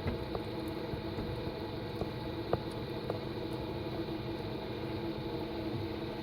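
A steady hum and hiss, with a few faint light clicks of a spoon against the pan as cheese is stirred into the sauce.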